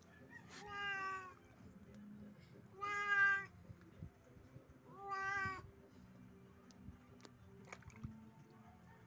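Cat meowing three times while being bathed, each meow short and about two seconds apart.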